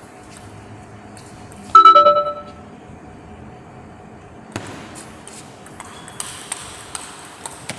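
Table tennis rally: sharp clicks of the celluloid ball striking paddles and table. About two seconds in, a loud ringing ping with several tones dies away in under a second.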